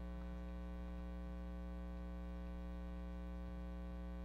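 Steady electrical mains hum with a stack of overtones, unchanging in level.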